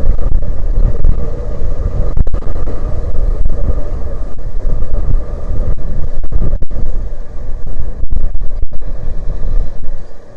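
Strong gusting wind buffeting the microphone: a loud, heavy rumble that surges and drops unevenly, with brief cut-outs.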